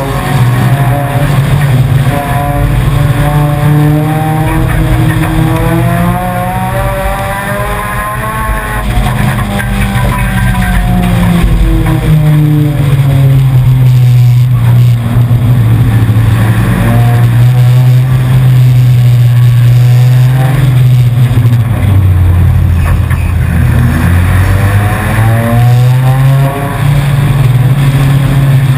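Four-cylinder enduro race car's engine heard from inside the car, loud throughout, its pitch rising as it accelerates and dropping as it lifts, over and over through the laps.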